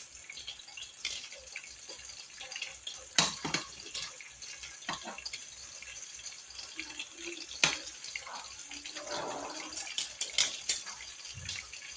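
Pork pieces frying in hot oil in a pan, with a steady high sizzle, while metal tongs click and scrape against the pan as the meat is turned, the sharpest clicks about three seconds in and near eight seconds.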